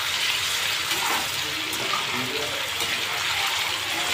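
Paneer cubes frying in hot oil in a wok, a steady sizzle, while a slotted spoon stirs them.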